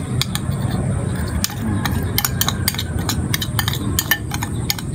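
Metal spoon clinking and scraping against a bowl in quick, irregular taps while mixing chili and salt, over a steady low rumble.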